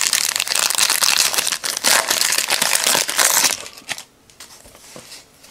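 Foil wrapper of a Panini NBA Hoops basketball card pack being torn open and crinkled for about three and a half seconds, then it goes much quieter, with a few light clicks as the cards are handled.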